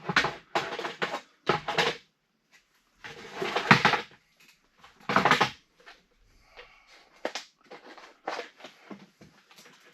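Irregular knocks and scrapes of wooden framing being worked on: several short bangs and a scrape about a second long in the first half, then a few lighter knocks.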